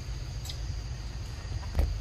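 Steady high-pitched chirring of forest insects, with a low rumble underneath. A faint click comes about half a second in, and a sharper crackle near the end.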